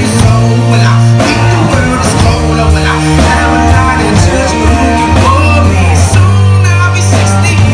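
Rock song with a singer over electric guitar, bass and drums, with a steady beat.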